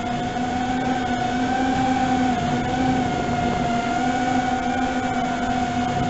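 FPV quadcopter's electric motors and propellers whining steadily in flight, the pitch wavering slightly as the throttle shifts.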